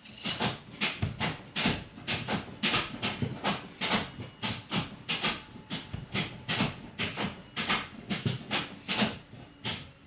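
A steady run of sharp clicks, about two to three a second.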